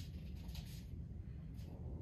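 Quiet room tone: a low steady hum with a few faint, soft rustles.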